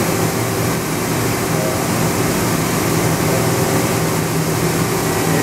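Steady mechanical hum of a Mori Seiki NH5000 horizontal machining center running, with several steady low tones and no breaks.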